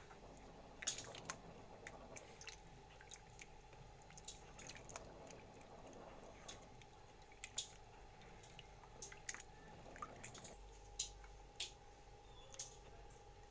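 Raw potato wedges being rubbed and swished by hand in a bowl of water: faint wet splashes, drips and squishes, with wet wedges lifted out onto a plate near the end. A faint steady hum lies underneath.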